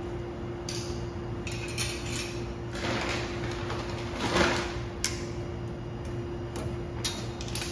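Hand work on metal parts: scattered sharp clinks and knocks with two longer scraping, rustling stretches, the second and loudest about four and a half seconds in, over a steady hum.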